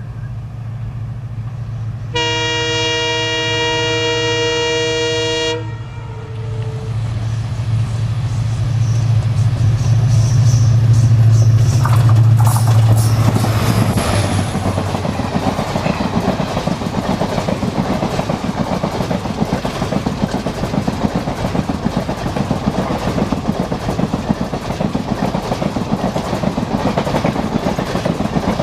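WDP4D diesel locomotive approaching: its EMD diesel engine drones low and grows louder, with one long blast of its multi-tone air horn lasting about three and a half seconds and a short second note just after. The locomotive passes about twelve seconds in, and the express coaches then roll by with a steady rush and the clickety-clack of wheels over rail joints.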